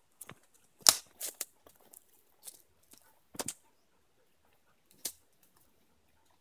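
Footsteps crunching through dry twigs and leaf litter on a forest floor: a handful of irregular steps and snaps, the sharpest about a second in, with a pause of over a second before a last step near the end.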